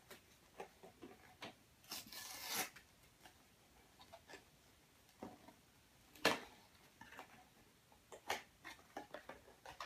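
Small cardboard blind box being handled and pried open by hand: scattered light taps and scrapes of the flaps, a brief rustle about two seconds in, and a sharp tap about six seconds in.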